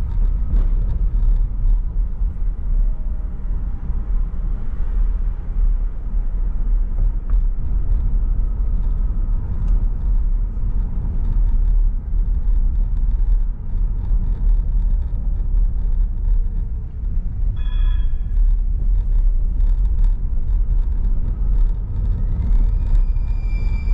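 Low, steady rumble of a car driving through city streets, with a brief high tone about three quarters of the way through.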